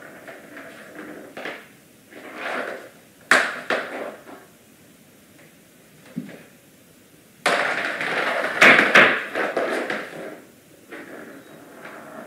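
Plastic ball-in-track cat toy rattling and clattering as a bobcat bats at it and the ball inside. A sharp knock comes a few seconds in, and a longer stretch of rattling clatter comes past the middle.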